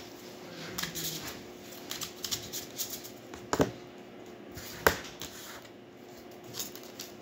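Tarot cards being handled and shuffled in the hands: a run of soft card flicks and light taps, with two sharper card snaps about three and a half and five seconds in.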